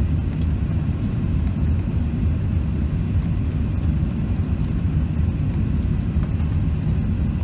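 Steady low rumble of an Airbus A380's four engines and the rushing air, heard inside the passenger cabin as the airliner climbs after takeoff.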